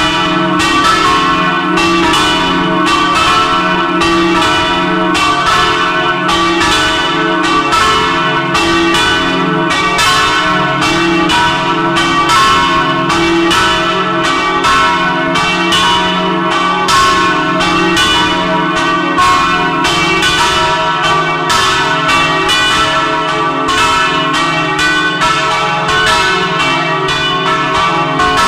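Several swinging bronze church bells ringing together at close range, their clappers striking in an unbroken, overlapping peal of several strokes a second.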